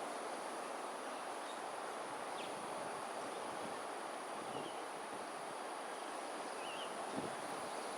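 Gusty wind rustling through foliage as a steady noise, with a constant high-pitched insect drone over it and a few short bird chirps scattered through.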